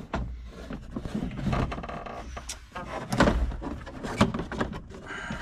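Plastic interior trim panel in a tractor cab being worked into place by hand: scraping and rubbing with several sharp knocks and taps, the loudest about three seconds in.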